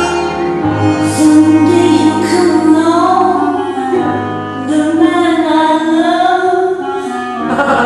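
Music: a woman singing long, wavering held notes over a steady low sustained tone.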